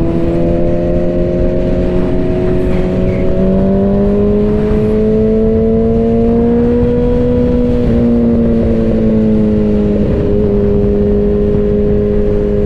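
Suzuki Hayabusa's inline-four engine running at steady highway cruising speed, its pitch slowly climbing for several seconds, then easing off with a small drop about ten seconds in, over a low rush of wind.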